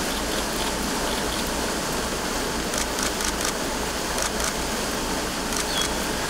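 Steady background hiss with no speech, with a quick run of faint clicks about three seconds in and a few more near the end.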